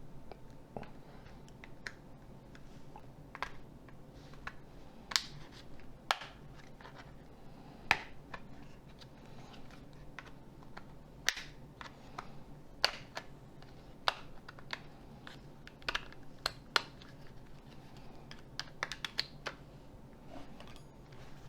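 Irregular sharp plastic clicks and snaps of a Nokia 6310 (2021) phone being handled and prised apart by hand, about fifteen in all, some louder than others, over a faint steady hum.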